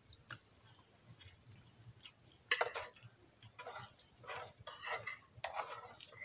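Eating at a shared plate: a few light clicks of spoons and forks against the plate, then, from about two and a half seconds in, a run of louder short eating noises, about two a second.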